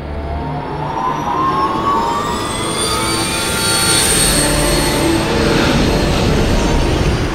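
Film sound effect: a jet-like whine that rises in pitch over about three seconds and swells into a loud, steady rush with a deep rumble underneath.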